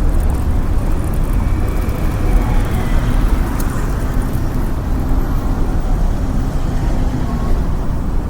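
Town street ambience: a steady rumble of road traffic, with faint murmurs of passers-by mixed in.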